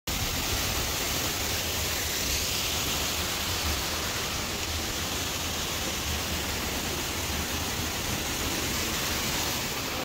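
Waterfall rushing steadily: an even, unbroken noise of falling water that cuts in and out abruptly.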